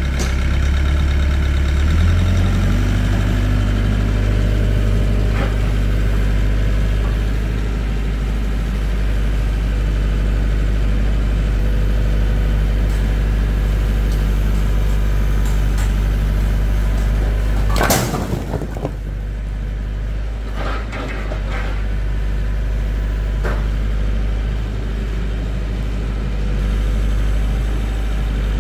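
A vehicle engine idling steadily, its speed stepping up a little about two seconds in. About eighteen seconds in there is one loud bang, followed by a few lighter knocks.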